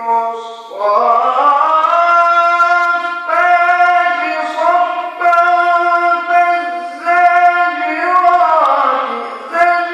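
A teenager's voice chanting Quran recitation in a long melodic line, holding notes and gliding up and down in pitch. The line breaks briefly between phrases a few times.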